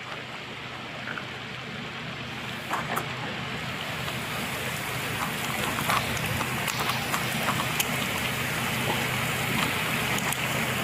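Heavy rain pouring down, with many scattered drops ticking sharply on surfaces, growing louder and fuller a few seconds in. A steady low hum runs underneath.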